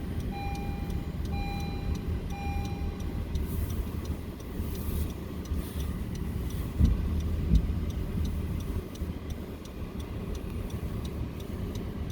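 Steady low rumble of a motor vehicle running. A repeating electronic beep sounds about once a second and stops about three seconds in, and two short thumps come about seven seconds in.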